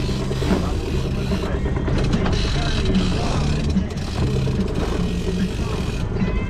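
A boat's engine running steadily with the rush of wind and sea, under background music with a repeating bass line.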